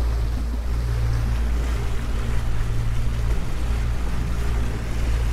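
Outboard motor running steadily at trolling speed, about 6 mph, under the rush of the boat's wake and wind noise.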